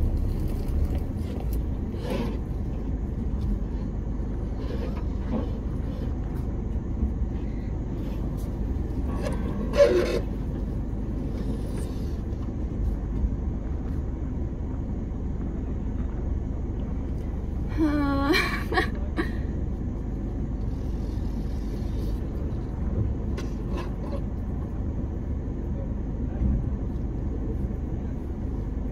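Suzuki Jimny crawling slowly over rocks: a steady low rumble of the engine and drivetrain, with one sharp knock about ten seconds in and a short wavering higher-pitched sound around eighteen seconds.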